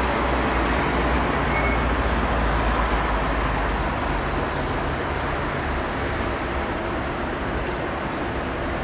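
Steady road-traffic noise of cars and buses going by. A deep low rumble eases off about halfway through.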